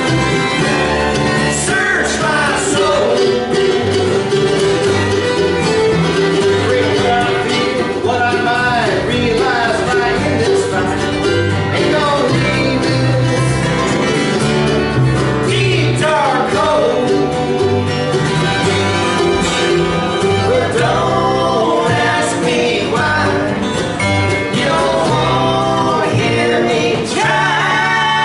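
Live bluegrass band playing a song on acoustic string instruments: mandolin, upright bass, acoustic guitar and fiddle.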